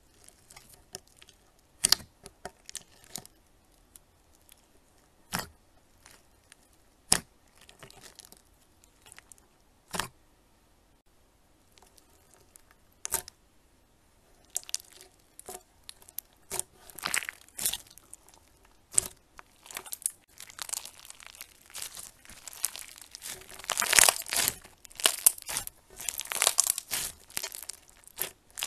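Translucent slime packed with small coloured beads, handled by hand: a few sharp pops spaced a second or two apart, then from about halfway a thickening run of crackling and clicking as the slime is pressed flat and squished.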